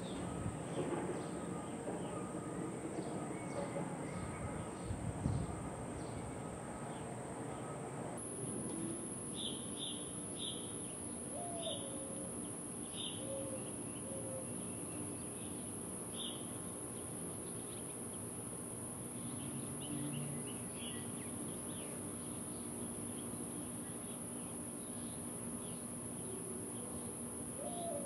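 Outdoor ambience: a steady high insect drone, louder after about eight seconds, with scattered short bird chirps, a run of about six between ten and sixteen seconds in.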